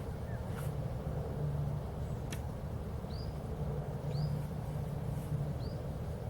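A steady low hum, like distant machinery, runs throughout. Over it come three short high chirps from a small bird, about three, four and five and a half seconds in, with a faint click or two.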